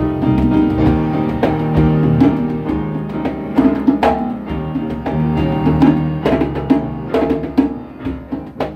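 Instrumental passage by a small band: djembe and conga struck in a quick rhythm over electric bass guitar and keyboard chords.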